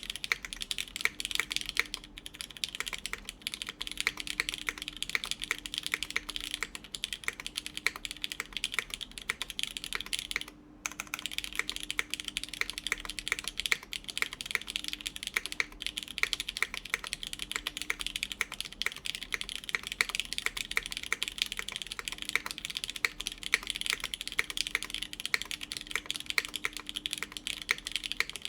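Fast continuous typing on a Beetle 60 mechanical keyboard with lubed Cherry MX Black linear switches, GMK keycaps and an aluminium half plate: a dense stream of key clacks, broken by one short pause about ten and a half seconds in.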